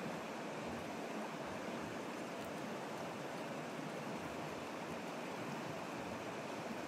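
Steady, even rush of water, unchanging throughout.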